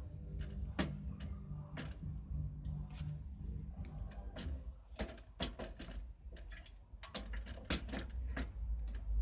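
Irregular clicks and knocks of a motorbike engine being handled and seated into its frame, over a low steady hum.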